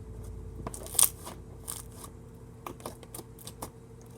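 Slime being worked by hand into a swirl, giving a run of small irregular sticky clicks and pops, with one louder pop about a second in.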